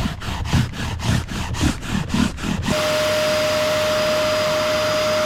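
Brisk rhythmic scrubbing strokes on seat upholstery, about three a second. About three seconds in, this gives way to a wetback upholstery extraction cleaner running with a steady whine.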